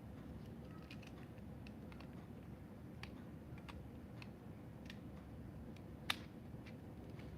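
Faint, scattered light clicks of plastic Lego bricks being handled and fitted, with one sharper click about six seconds in, over a low steady background rumble.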